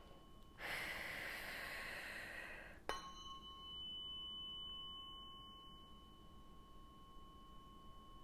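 Tuning fork ringing with a steady high tone. About half a second in, a loud hiss runs for roughly two seconds. Nearly three seconds in, the fork is struck with a sharp click, and its brighter ring fades over the next few seconds.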